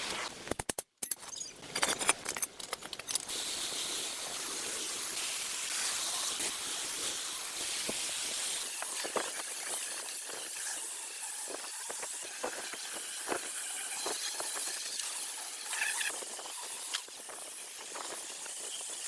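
A steady high-pitched spraying hiss with scattered light clicks and ticks, after a brief break and a few seconds of clicking near the start.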